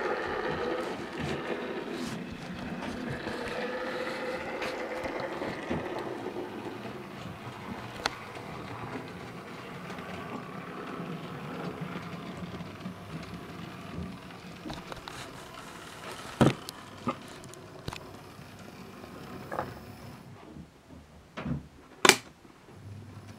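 N gauge model locomotive's small electric motor whirring and its wheels running on the track, loudest at first and fading as the train moves away. Near the end come a few sharp clicks, one louder than the rest.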